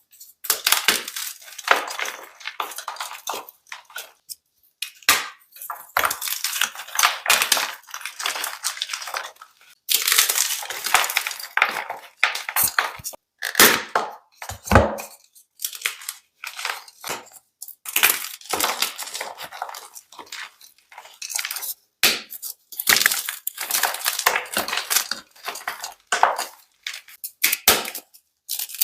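White and blue blocks of gym chalk crunching as they are crushed close to the microphone, in repeated crackly bursts of a second or two with short silent gaps between them.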